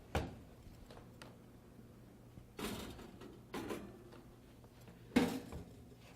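Handling sounds as a convection oven is opened and a water bottle in its sublimation clamp wrap is taken out: a sharp click at the start, scraping and knocking about two and a half and three and a half seconds in, and the loudest knock about five seconds in.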